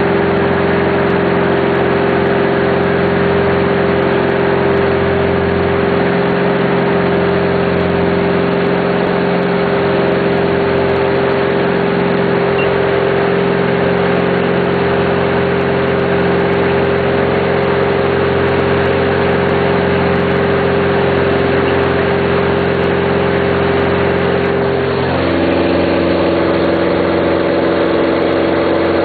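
Cirrus SR20's six-cylinder Continental engine and propeller droning steadily in flight, heard from inside the cockpit. Near the end the drone's pitch shifts to a different tone.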